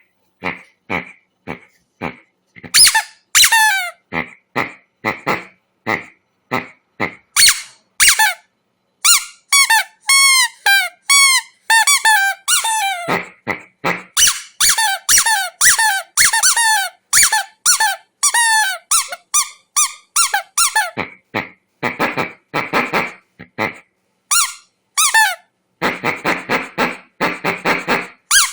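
Squeaky rubber dog toy ball squeezed over and over. It gives short squeaks, many falling in pitch, in quick irregular runs, with a few longer raspier squeaks near the end.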